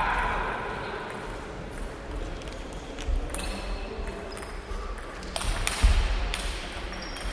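Table tennis ball clicking sharply off the rackets and table, a few separate hits with the loudest about six seconds in, ringing in a reverberant sports hall.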